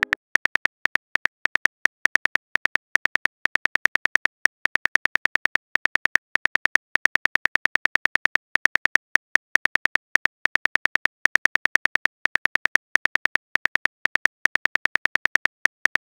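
Simulated phone-keyboard typing clicks from a texting-story app, one identical click per letter. They come in a fast, uneven run of several clicks a second, with short pauses between bursts.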